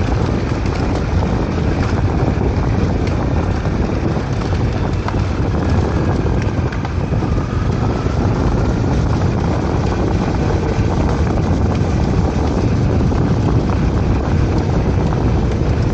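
Steady wind rumble buffeting the microphone, heavy in the low end and unchanging throughout.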